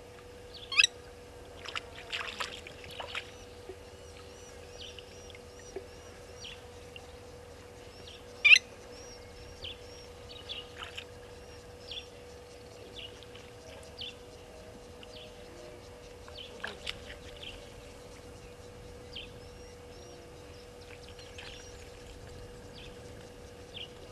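Blacksmith lapwings giving sharp, metallic 'tink' calls, the loudest about one second, two to three seconds and eight and a half seconds in. Softer repeated chirping from other birds and a faint steady hum run underneath.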